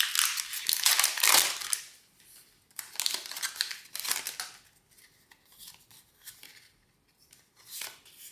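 A Pokémon TCG booster pack's foil wrapper crinkling as it is opened, for about two seconds. Then shorter, separate rustles follow about once a second as the cards are handled.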